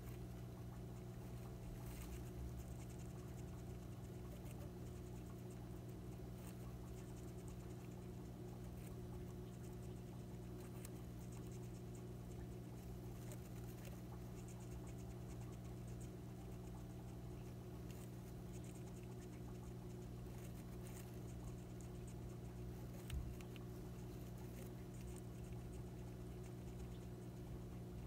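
Faint, scattered small clicks and scratches from a pet hamster in its cage with paper bedding, over a steady low hum. One brief knock comes late on.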